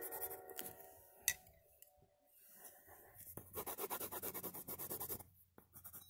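Coloured pencil shading on paper: about three and a half seconds in, a quick run of rapid back-and-forth scratching strokes lasting under two seconds. A single sharp tap a little over a second in.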